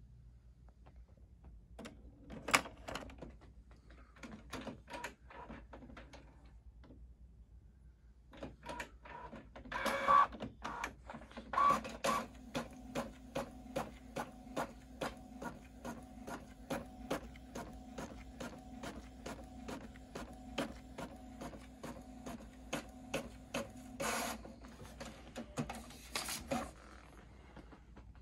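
Canon PIXMA MG6220 inkjet printer printing a colour test page. It clicks and whirs as it starts up, then the print head shuttles back and forth about twice a second over a steady motor whine.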